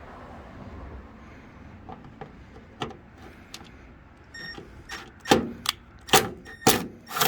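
A fastener on the truck's headlight trim being worked off with a hand tool: quiet fiddling at first, then a run of sharp clicks, about two a second, over the last few seconds.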